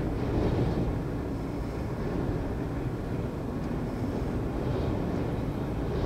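Gale-force storm wind and heavy surf breaking on a rock breakwater: a steady, dense rumble, with now and then a brief hiss of spray.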